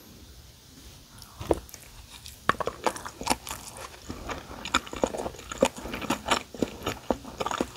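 Mouth sounds of chewing a big mouthful of kimchi fried rice with fried egg: irregular wet smacks and clicks that start about a second and a half in and come thicker toward the end.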